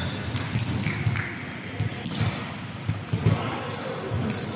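A volleyball thumping on a hard indoor court floor, several dull bounces about a second apart, echoing in a large sports hall. Players' voices can be heard in the background.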